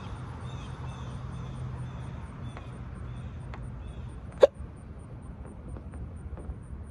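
A single sharp hiccup from a woman about four and a half seconds in, short and loud against a steady low hum.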